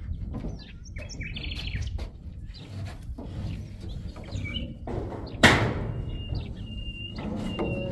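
Small birds chirping, with a low rumble throughout and one loud thump about five and a half seconds in. After the thump comes a thin, steady high whistle in short stretches.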